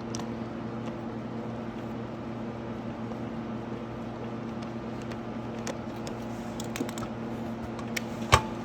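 Small scattered clicks and taps of a screw being driven in by hand to fix a plastic dirt-bike side fairing, over a steady hum; one sharp knock near the end.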